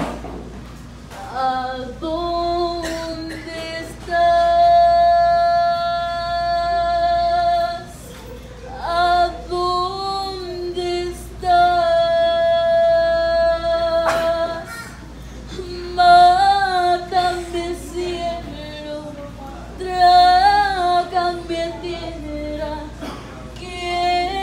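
A girl singing solo into a handheld microphone: a slow melody with two notes held for several seconds in the first half, and wavering vibrato on the notes after that.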